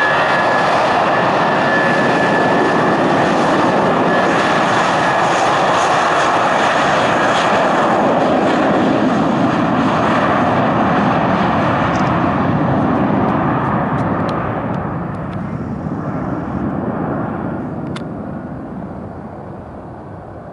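Airbus A319 airliner's twin jet engines at takeoff power on the takeoff roll: a loud, steady engine noise with a high whine at first, growing fainter over the last several seconds as the plane speeds away down the runway.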